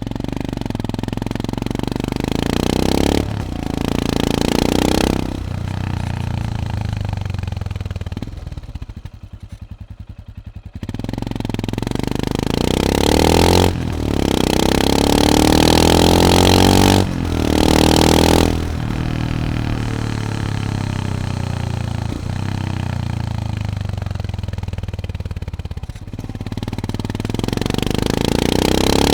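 A 2020 Royal Enfield Himalayan's single-cylinder engine breathing through a Lextek aftermarket silencer, heard from the bike itself while riding. It accelerates several times, the pitch climbing and dropping sharply at each gear change, with a slowing-down stretch where the pitch falls away before it picks up again near the end.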